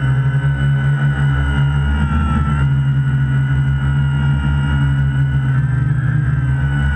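Quadcopter's electric motors and propellers running in flight, heard from the camera mounted on the craft: a loud, steady whine over a low hum. The whine's pitch dips and wobbles briefly about two seconds in.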